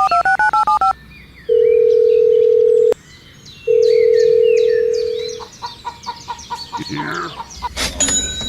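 Telephone keypad tones dialing a number, about eight quick two-pitch beeps, followed by two long steady ringing tones of the call going through. Birds chirp in the background, and near the end comes a fast run of short beeps.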